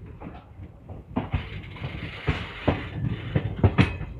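Indian Railways express passenger coach running on the track: a steady rushing noise with irregular sharp knocks and clatter from the wheels on the rails.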